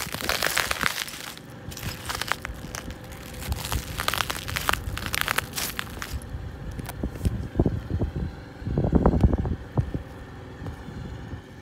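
Heavy Caterpillar boots crunching and grinding broken glass bottles inside a plastic bag on asphalt, a crackly crushing sound through the first half. Later come duller low thumps and scuffs.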